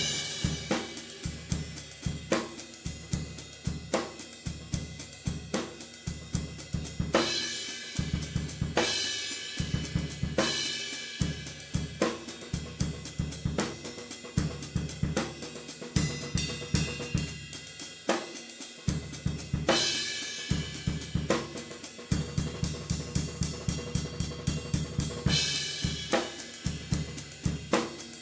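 Drum-kit track as background music: a steady beat of bass drum, snare and hi-hat, with a cymbal crash every few seconds.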